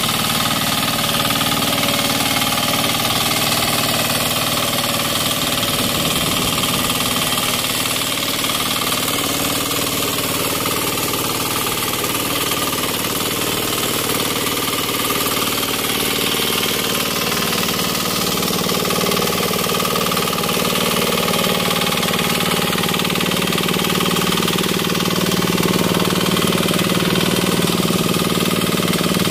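The engine of a turtle tiller (a floating hand tractor) running steadily under load as it tills a flooded rice paddy.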